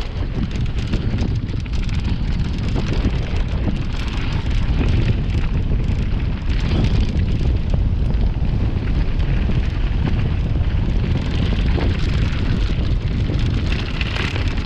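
Mountain bike riding noise on a downhill trail: wind buffeting the camera's microphone over the rumble of tyres on dirt and leaves, with frequent clicks and rattles from the bike over rough ground.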